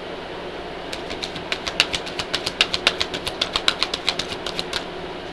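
Deck of oracle cards being shuffled by hand: about a second in begins a run of quick, irregular card clicks and snaps, about five a second, which stops near the end. A steady low hum lies underneath.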